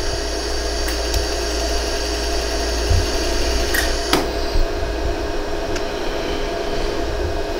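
Steady hum of a pulsed jewelry laser welder, with a few sharp clicks of laser pulses firing on a hollow gold earring to fill its holes. Two of the clicks come close together about four seconds in.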